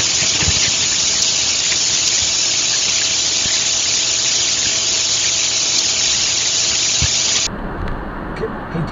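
Loud, steady hiss with a faint steady tone beneath it, cutting off suddenly near the end and giving way to quieter road noise.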